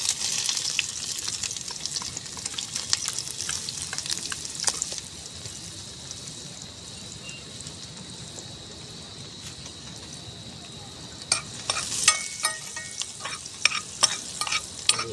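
Wood cooking fire of rain-soaked wood hissing and crackling, with a dense run of crackles for the first few seconds before it settles to a quieter hiss. Sharp clicks and knocks come in over the last few seconds.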